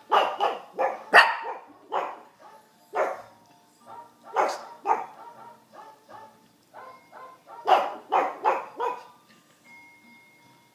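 Brussels Griffon dogs barking in repeated bursts, a few short barks at a time, loudest about a second in and again near the end, then dying away.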